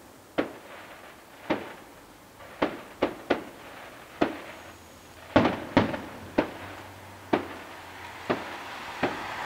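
Aerial firework shells bursting: about a dozen sharp bangs at irregular intervals, several close together near the middle, each trailing off in a short echo.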